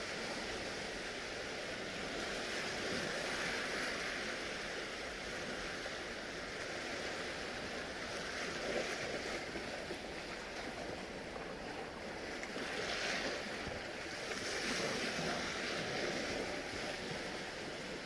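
Small waves from a calm sea washing gently onto the shore, the wash swelling and easing every few seconds.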